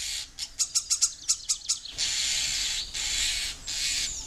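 Common starling calling: a quick run of short clicking chirps, then three harsh, hissing screeches of about half a second to a second each. These are the loud cries of a female urging her mate to bring food.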